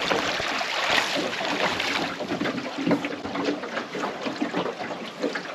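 River water rushing and rippling, a steady wash dotted with many small splashes.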